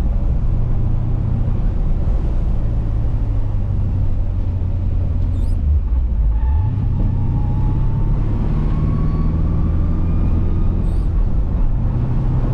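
2005 Pontiac GTO's V8 engine and road noise heard from inside the cabin while driving, a steady low drone. About six seconds in, the engine note drops briefly and then climbs again, with a faint whine rising alongside it.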